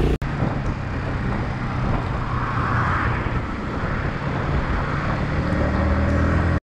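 Motorcycle engine running with wind and road noise, which cut off abruptly near the end.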